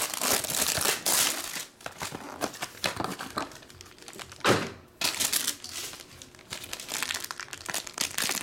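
Plastic wrapping and a black foil trading-card pack crinkling and crackling in the hands as they are peeled and worked open, with one louder crackle about halfway through.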